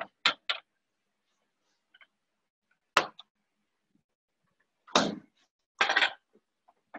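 Refrigerator door being handled, with a couple of knocks and a sharp shutting thud about three seconds in. Near the end, two glass jars are set down one after the other on a stone countertop.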